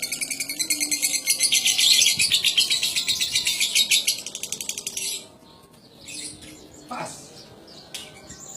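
Lovebird singing a long, fast unbroken run of high chirping chatter, the extended trill that keepers call ngekek. It stops suddenly about five seconds in.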